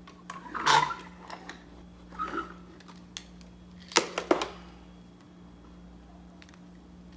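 Handling noises: a rustle and knock just under a second in, another softer one a little past two seconds, then a cluster of sharp clicks and knocks about four seconds in, over a steady low hum.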